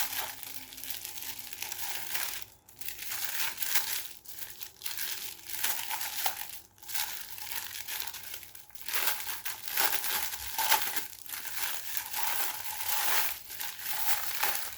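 Packaging being crinkled and torn open by hand in irregular rustling bursts as an item is unwrapped.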